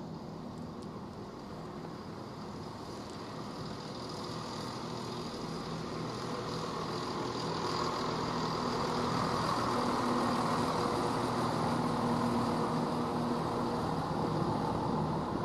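A train running with a steady low hum and a broad rushing noise, growing louder over about ten seconds and then holding.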